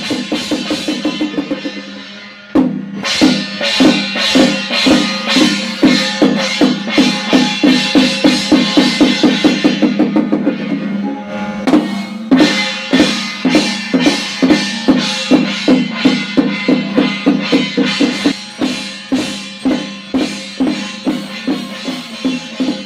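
Drums and percussion beaten in a fast, even rhythm, typical of a Chinese temple percussion ensemble. The beating breaks off briefly twice, about two and a half seconds in and again near the middle, then resumes.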